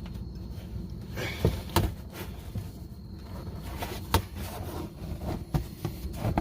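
A few sharp plastic clicks and knocks from handling a car's fender liner and its push-in retaining clips, over a steady low rumble.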